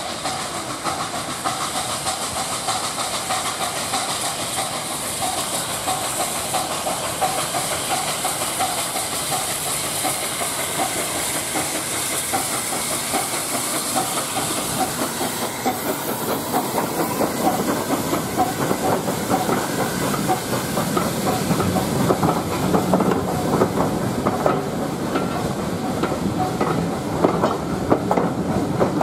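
A saddle-tank steam locomotive approaches hauling a passenger train, with steam hissing over its working beat. It passes a little over halfway through, and then the coaches roll by with the clickety-clack of wheels over the rail joints.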